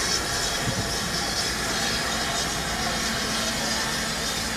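Steam locomotive standing at rest, giving off a steady hiss over a steady low hum.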